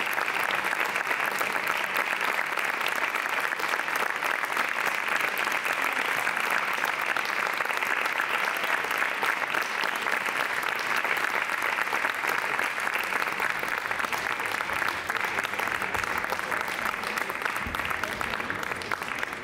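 Theatre audience applauding steadily at the curtain call, many hands clapping together.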